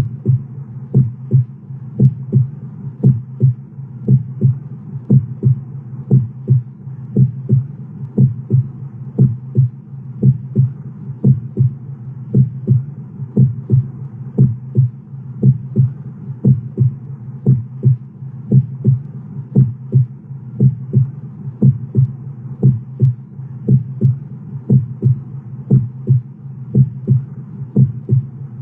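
Heartbeat: a steady double thump, lub-dub, repeating about once a second over a low steady hum.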